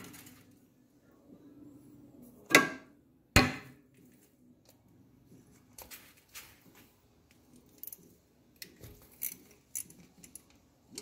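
Metal hand tools clinking: a socket wrench with extension knocking against the water pump cover bolts of an ATV engine, two sharp clinks a few seconds in, then scattered light clicks.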